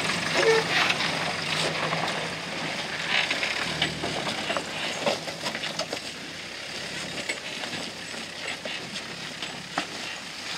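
Land Rover Defender engine running at low revs as it crawls over a rocky track, with tyres crunching and knocking over loose stones. The engine hum fades after about four seconds as the vehicle pulls away, leaving mostly the crunch of stones.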